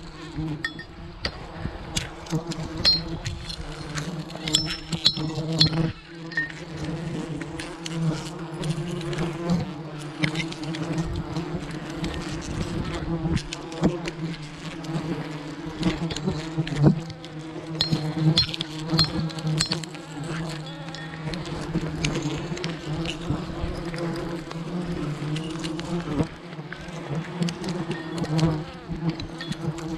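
A swarm of giant honey bees buzzing in a steady low drone, with frequent light clicks and knocks over it.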